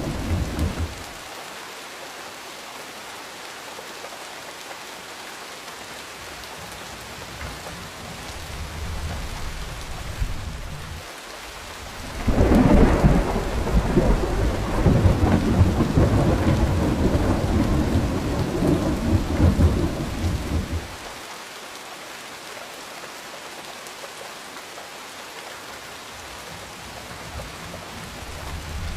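Steady rain falling, with thunder rumbling: a rumble dies away in the first second, a long, loud, deep roll of thunder starts about twelve seconds in and lasts some nine seconds, and another begins to build near the end.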